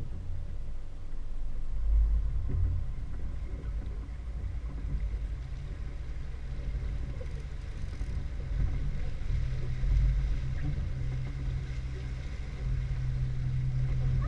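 Outboard motor running as the boat gets under way, with a steady low hum that grows stronger about nine seconds in, over the wash of water churned up behind the stern.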